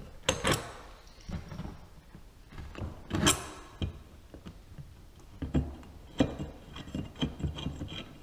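Bolts being worked out of a metal mounting plate and the holes drilled beneath it in a plywood platform: irregular clicks, scrapes and knocks of metal on metal and wood. The louder knocks come about half a second and three seconds in, with a run of lighter ticks near the end.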